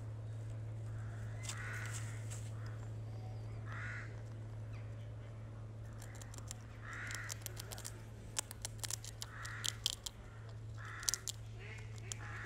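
A grey squirrel gnaws and cracks a nut close by, making a run of sharp clicks in the second half. Throughout, a bird gives short calls every couple of seconds over a steady low hum.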